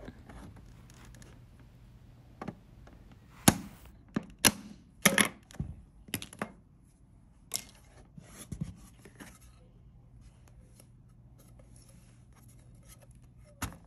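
Hard plastic clicking and knocking as the gateway's clipped-on plastic top lid comes free and is handled: a dozen or so separate sharp clicks and taps, the loudest between three and five seconds in, then only faint handling noise.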